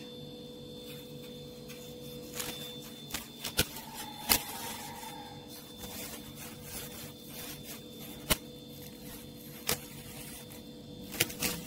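A kitchen knife cutting the core and seeds out of a halved crisp apple held in the hand: a few sharp snaps and clicks, one to a few seconds apart, over a steady hum.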